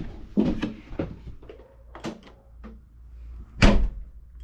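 Clicks and knocks from the tailgate of a 2012 Land Rover Freelander 2 as a newly fitted tailgate release switch is tested. One loud thud comes about three and a half seconds in.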